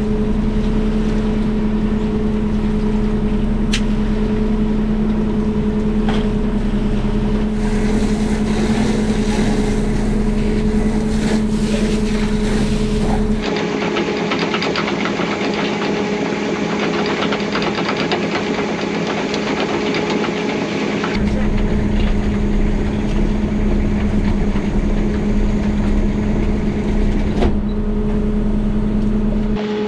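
Fishing boat's engine and hydraulic net hauler running steadily as gear is hauled aboard, a constant low mechanical hum.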